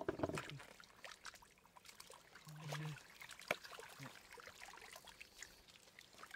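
Shallow water trickling and splashing in small, irregular bursts.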